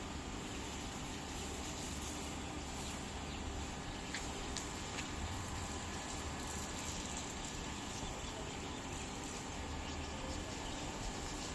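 Steady outdoor background hiss with a faint, high, continuous insect drone and a few small clicks.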